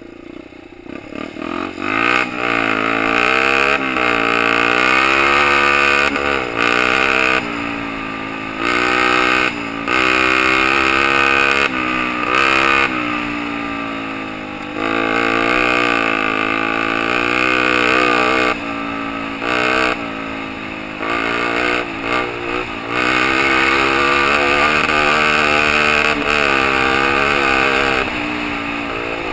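Honda XL 125 R's single-cylinder four-stroke engine under way off-road, quieter for the first second or two and then revving hard, its pitch climbing and falling again and again with sudden drops as the throttle closes and gears change.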